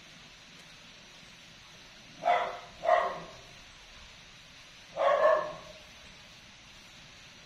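An animal calling three times: two short calls about two seconds in, then a longer one about five seconds in.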